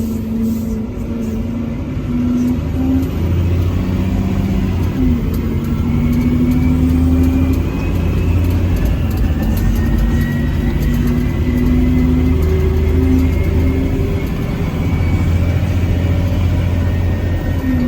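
Caterpillar 730 articulated dump truck's diesel engine running steadily, with a faint whine that rises slowly in pitch through the middle of the stretch.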